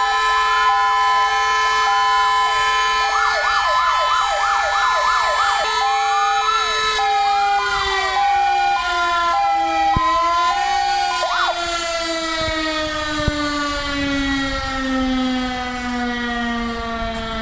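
Fire engines' sirens wailing up and down and alternating between two notes, over the steady tone of a motor-driven alarm siren. About seven seconds in the alarm siren begins winding down, its pitch falling slowly to the end. The fire engines' sirens stop about eleven seconds in.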